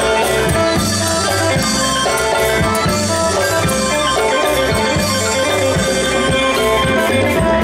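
Isan pong lang folk ensemble playing live: melodic instruments over a steady drumbeat.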